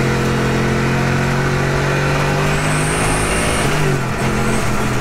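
V8 engine of a home-built 750 bhp Lexus LS400 drift car, heard from inside its stripped cabin, running hard at steady revs on the road. The note drops slightly about four seconds in, and a faint high whistle rises briefly near the middle.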